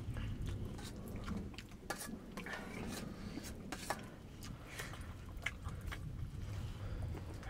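A spoon clinking and scraping on a metal plate, with chewing. There are a few sharp clicks scattered throughout, over a low, steady background noise.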